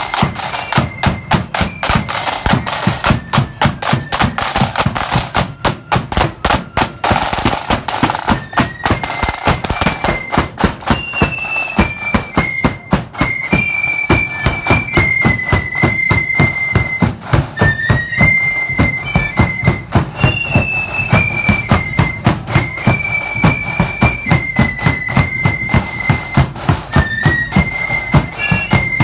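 Marching fife and drum band: snare drums play a dense, steady beat, and about ten seconds in the fifes come in with a high, shrill melody over the drums.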